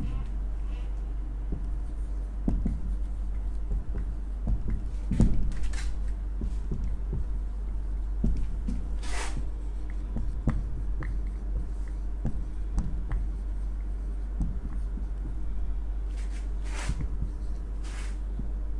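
Marker pen writing on a whiteboard: scattered scratchy strokes and small taps, with a steady low hum underneath.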